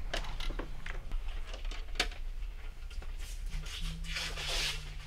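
Scratching and rustling of wiring being handled, with scattered small clicks and one sharp click about two seconds in, over a steady low hum.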